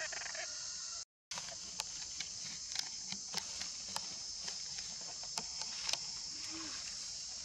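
Steady high-pitched drone of an insect chorus, with scattered short clicks and taps over it. The sound cuts out completely for a moment about a second in.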